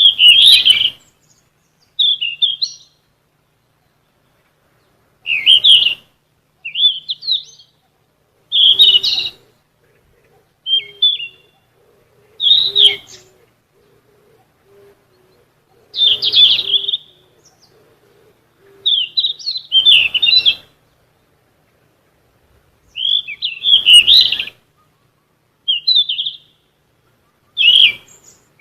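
Sikatan emas, a Ficedula flycatcher, singing: short, quick chirping phrases about every one to three seconds, with clean silence between them.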